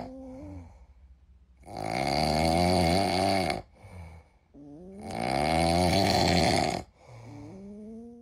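Sleeping kitten snoring: two long snores of about two seconds each, with fainter breaths rising in pitch before, between and after them.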